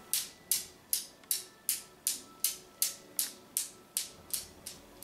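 Steel balls of a Newton's cradle clacking against each other in a steady rhythm, about two and a half sharp metallic clicks a second, each with a brief ring, growing slightly softer near the end.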